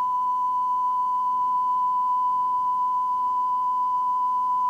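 A steady 1,000 Hz test tone, recorded on a Pioneer reel-to-reel tape deck and played back unprocessed with the deck's wow and flutter still in it. It cuts off suddenly at the end.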